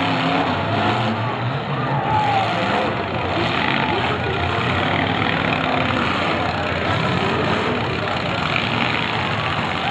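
Several demolition derby cars' engines running and revving together.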